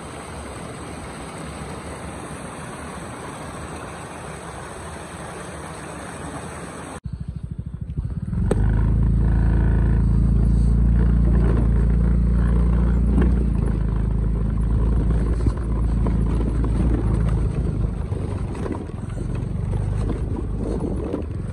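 Small stream running, a steady rush of water. About seven seconds in it cuts to a motorcycle engine running at low speed on the track, a loud steady low drone that wavers a little toward the end.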